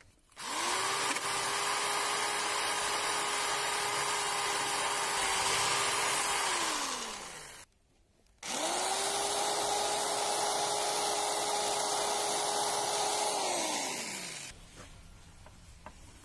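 Electric drill running twice, each time spinning up, holding a steady whine for about six seconds, then winding down as the trigger is released.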